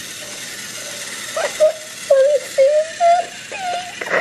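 Tomy Trackmaster Gordon toy train running on plastic track, its small motor and wheels giving a steady rattling whir. From about a second and a half in, a run of short, pitched, wordless vocal sounds rises and falls over it and is the loudest part.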